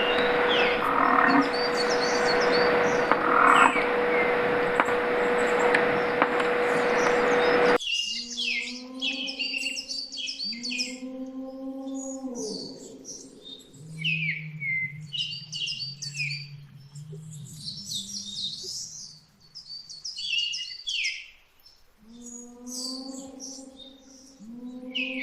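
A loud steady rushing noise with a steady hum, cutting off abruptly about eight seconds in. It gives way to many small birds chirping, mixed with repeated low drawn-out calls of about a second each and a low steady drone in the middle.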